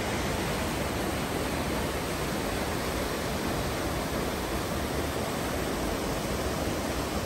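The Whitewater River rushing below Whitewater Falls: a steady, even rush of fast-flowing water.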